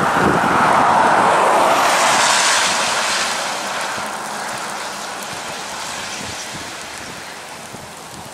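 Vehicle tyres hissing through spray on a wet road as traffic passes close by, the rush loudest in the first couple of seconds and then fading away.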